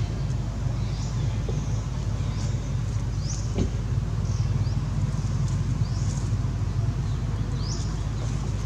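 A steady low rumble, like distant traffic, under short high rising chirps that repeat about once a second.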